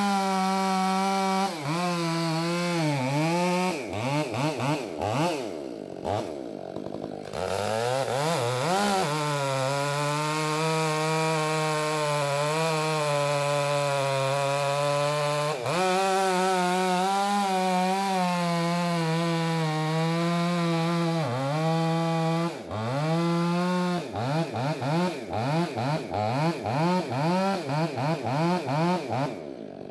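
Stihl two-stroke chainsaw bucking ash logs, running at full throttle with its pitch sagging as the chain loads in the cut. It drops back toward idle around five seconds in and briefly a few more times, and near the end it is revved in quick short bursts, about two a second.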